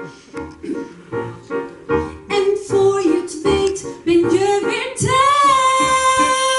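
A woman singing a melody into a microphone; about five seconds in her voice slides up onto a high note and holds it steadily.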